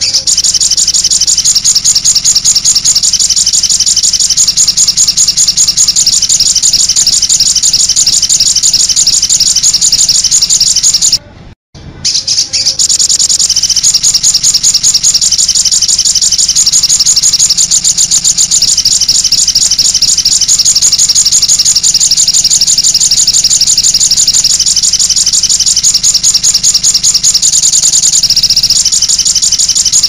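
Olive-backed sunbird song played as a bird-lure recording: a loud, continuous, very fast high-pitched twittering trill. It cuts out briefly about eleven seconds in, then carries on.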